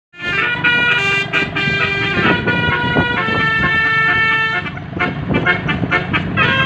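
Telolet basuri bus horn playing a tune: a run of loud horn notes that step from pitch to pitch, over a rough noisy background.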